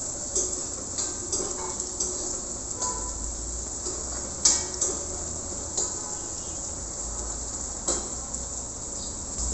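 Sliced bitter gourd frying in a wok with a steady sizzle, while a metal ladle stirs it, clacking and scraping against the wok now and then, loudest a little before halfway.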